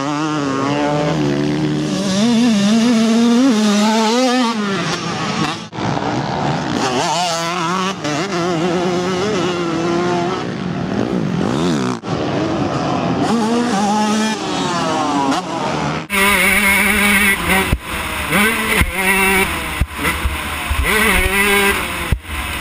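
Two-stroke motocross bikes revving hard and shifting on a dirt track, the engine pitch climbing and dropping, in several short clips cut together. From about three-quarters in, the engine is heard from on the bike, with a strong wind hiss over it.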